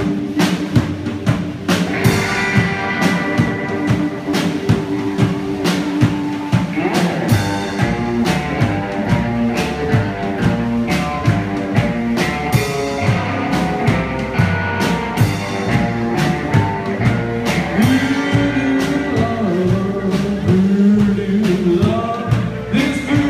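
Live rockabilly band playing: Gretsch hollow-body electric guitar, upright double bass and drum kit keeping a steady beat. Singing comes in near the end.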